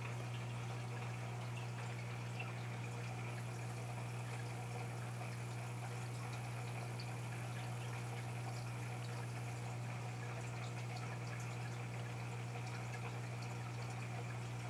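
Aquarium filter running steadily: a constant low hum with a faint trickle of water.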